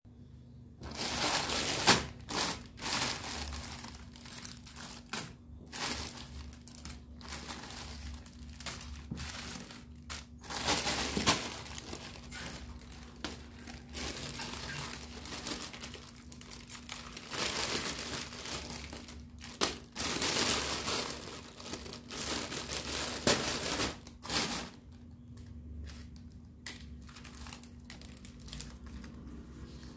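Clear plastic bag and thin plastic-film toy wings crinkling and rustling as hands handle them, in irregular bursts, quieter in the last few seconds.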